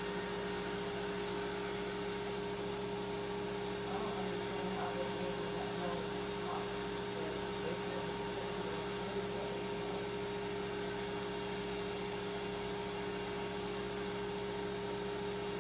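Steady electric hum of a countertop convection air-fryer oven's fan and motor, with a few fixed tones that do not change.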